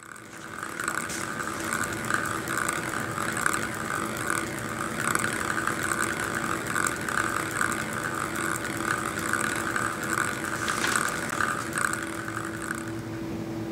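A metal-coated ping pong ball rolling round and round inside a clear plastic hemisphere, driven by high-voltage electrodes. It makes a steady rolling whir that swells and fades in a quick, even rhythm as the ball circles, with small clicks as it crosses the metal electrode strips. The sound stops about a second before the end, leaving a low steady hum.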